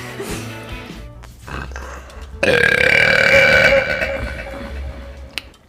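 A long, deep burp starts about two and a half seconds in, loud for about a second and a half and then trailing off, after a fainter sound about a second and a half in. Background music plays underneath.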